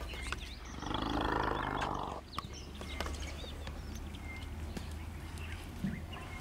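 An African elephant calf gives one rough, noisy roar about a second and a half long, starting just under a second in, over a steady low hum.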